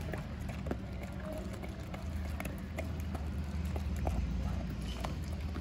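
Dogs and puppies crunching and chewing dry kibble off a concrete floor: irregular crisp clicks and crunches over a steady low hum.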